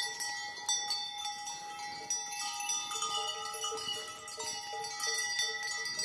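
Cowbells clanking on the necks of walking cattle, ringing out irregularly at several different pitches.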